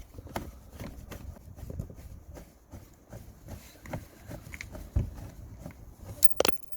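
Irregular small clicks and knocks of a T20 socket tool working the screws of a car's plastic undertray cover, with two sharper clicks near the end.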